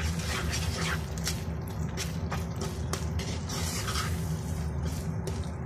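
Wooden spatula stirring and scraping a thick, wet besan halwa mixture (gram flour cooked in ghee and sugar with water) in a nonstick pan, with scattered clicks of the spatula against the pan over a steady low hum.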